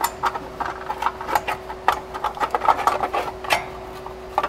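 Thin sheet-metal exhaust manifold heat shield being bent and worked by hand, giving a quick, irregular run of metallic clicks, crinkles and rattles.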